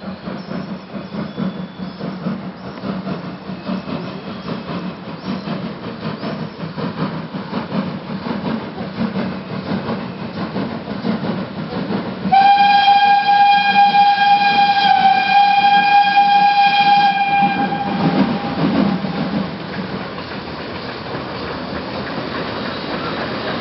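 Ty42-107 steam locomotive sounding its steam whistle in one long blast of about five seconds, about halfway through, over the steady rumble of the approaching train.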